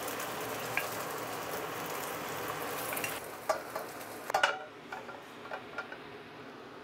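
Beaten egg sizzling as it fries in a hot pan, an even hiss that dies down about four and a half seconds in, with a few light clicks just before it fades.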